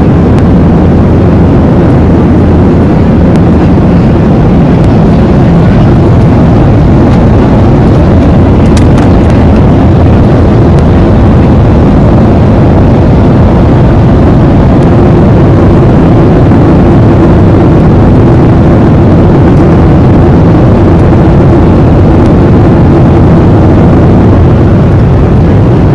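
Jet airliner cabin noise in flight: a loud, steady roar of engine and airflow, heaviest in the low end, with no break.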